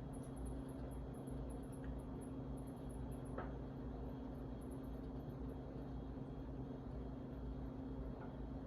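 Harbor Breeze Asheville ceiling fan motor running with a steady electrical hum and a faint whoosh, with one faint click about a third of the way in. The fan is running on a bad capacitor.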